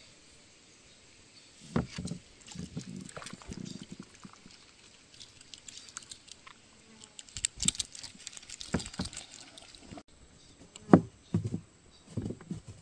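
Water splashing and knocks against a small fishing boat's hull as the rod and gear are handled, irregular, with a few louder knocks near the end.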